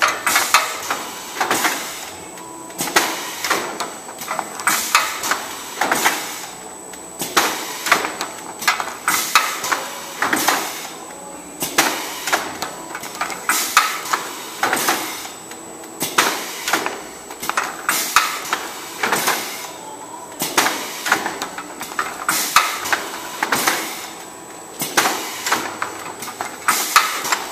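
Automatic pneumatic shell-closing machine for tooth-powder containers running in its cycle: a cluster of clacks and knocks from its air-driven stations repeats about every two seconds, with a faint steady high whine underneath.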